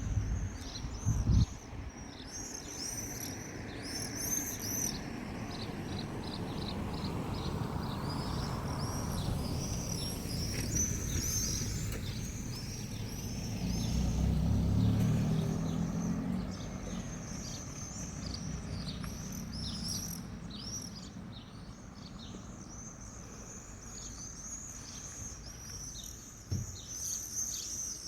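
Small birds chirping and singing in rapid series of short, high notes, with a low rumble that swells and fades about halfway through.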